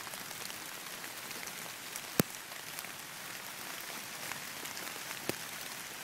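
Steady rain falling hard on the trees and leaf-covered forest floor, an even hiss with a few sharp clicks, the loudest about two seconds in and another about five seconds in.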